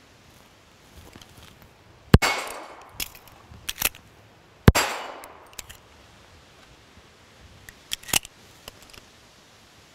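Two pistol shots about two and a half seconds apart, each with a short fading echo. Between them come a few sharp metallic clicks of a speed reload, the magazine dropped and a fresh one seated, and a few lighter clicks come near the end.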